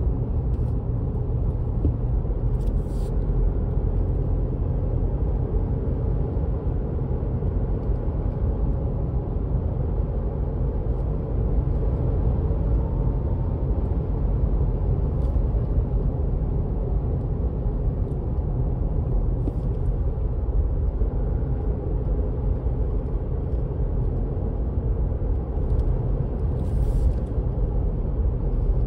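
Steady low rumble of a car driving along a sealed road, heard from inside the cabin: tyre and road noise with the engine underneath.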